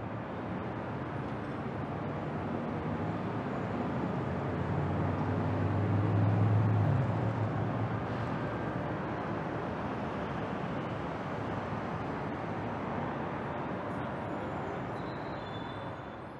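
City ambience: a steady rumble of distant traffic that fades in, swells with a low hum about six to seven seconds in, and fades away near the end.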